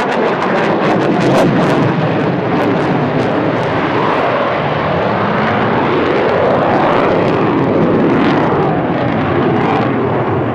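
Eurofighter Typhoon's twin EJ200 turbofan jet engines, a loud steady roar as the fighter flies past overhead, with a slow rising and falling sweep in tone as it passes.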